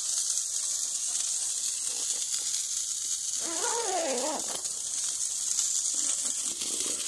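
Steady high hiss, with a brief wavering, whine-like pitched sound about three and a half seconds in that lasts about a second.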